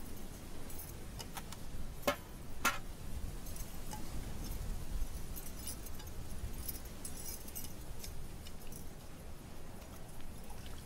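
Low, steady wind rumble with a few light metallic clinks and jingles, the two sharpest about two seconds in, from small metal and glass items being handled.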